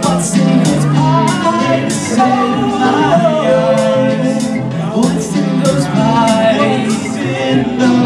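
A live new-wave synth-rock band playing: synthesizer and drum-machine beat with electric guitar and bass guitar, and a man singing over them.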